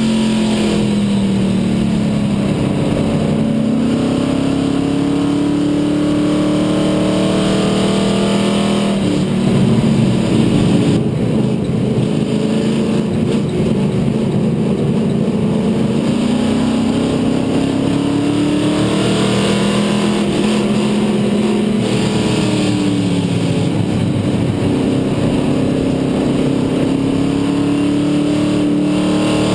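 Stock race car's engine at race pace, heard from inside the cockpit. Its note climbs steadily and drops back three times as the car goes round the oval. About ten seconds in there is a rougher, slightly louder stretch.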